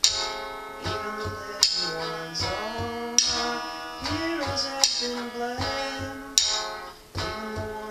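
Electric guitar through a small practice amp, playing a repeating riff with bent and sliding notes. Drumsticks strike sharply in time about every second and a half.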